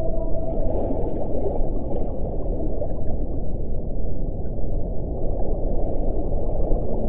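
Underwater recording of whale vocalizations: a short held tonal call dies out in the first half second. After it comes a dense, steady low rumble of water noise with faint gurgling.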